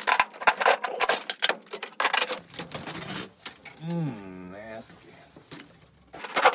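Old perforated headliner of a 1965 VW Beetle being torn and pulled down from the roof: rapid crackling and ripping in quick clusters. About four seconds in comes a short wordless voice, rising and falling for about a second.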